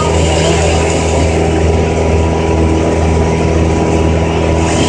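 An engine running steadily at a constant speed, a low even drone with no revving.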